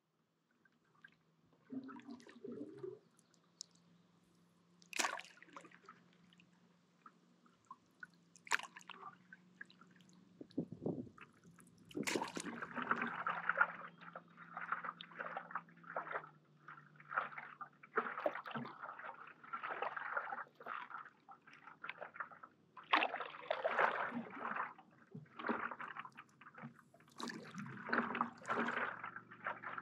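Stand-up paddleboard paddle stroking through lake water: splashes, drips and gurgling as the blade dips and pulls, with a few sharp knocks early on and the strokes coming thicker from about the middle.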